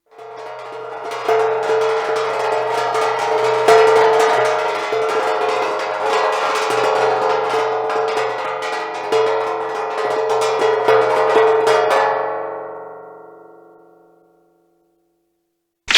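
Cartoon music sound effect: quick percussive strikes over a held chord. It plays for about twelve seconds, then fades out.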